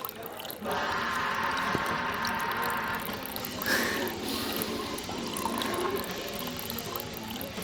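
Water running steadily, like a tap or a liquid being poured, starting under a second in and changing after about three seconds.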